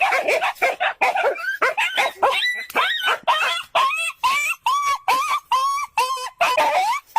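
A dog barking in quick, repeated high yips, about two or three a second.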